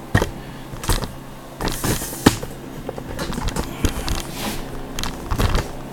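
Camera tripod being handled and repositioned: scattered knocks, clicks and rattles of the legs and head, the sharpest knock a little over two seconds in.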